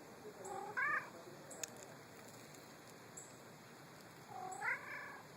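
Domestic cat meowing twice: a short meow about half a second in and a longer one near the end, each rising then falling in pitch. A brief click sounds between them.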